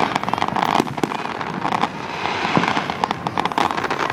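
Fireworks crackling: a rapid, dense run of many small pops and crackles with a few sharper bangs among them.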